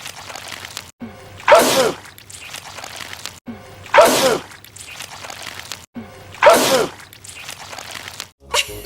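A man's loud sneeze, the same clip repeated three times about two and a half seconds apart. Each is a sharp burst with a falling voiced tail.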